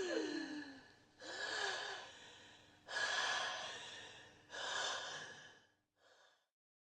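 A person's scream trailing off in a short falling wail, followed by three long, breathy gasps and a faint fourth breath, as in a scream sound effect.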